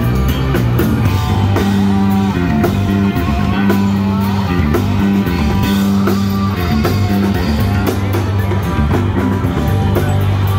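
Street band playing rock: an amplified electric guitar over a drum kit, with sustained low notes and steady drum hits.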